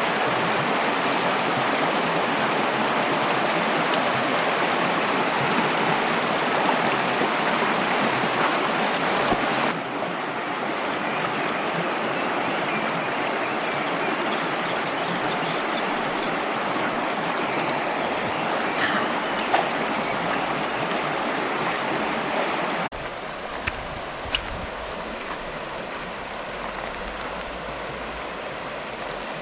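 Mountain stream rushing steadily over rocks, a loud even hiss of flowing water. It shifts abruptly about a third of the way in and again near the end, each time a little quieter; in the last part a thin, steady high tone sits above the water.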